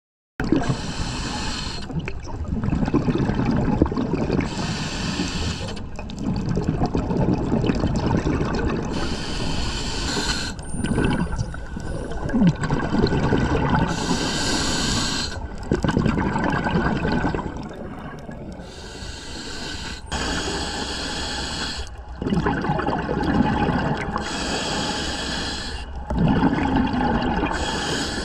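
Scuba diver breathing through a regulator underwater: a hissing inhale, then a rush of bubbling exhaust, repeating about every four to five seconds.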